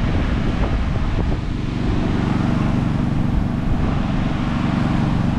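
A steady low mechanical hum, like a motor or engine running nearby, with a few faint handling clicks about a second in.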